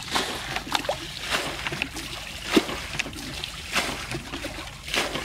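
Hands digging and squelching in wet mud and shallow muddy water, with irregular wet slaps and splashes.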